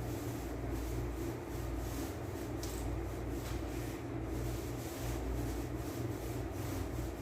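Light rubbing and handling noises over a steady low hum.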